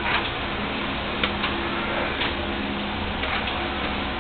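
Small electric motor of a model car-park elevator running with a steady hum, with a few light clicks, the sharpest about a second in.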